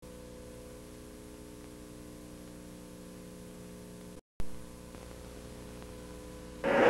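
Steady electrical mains hum with hiss, with no game sound under it. The audio drops out completely for a moment just after four seconds in and comes back with a click. Loud crowd noise cuts in suddenly just before the end.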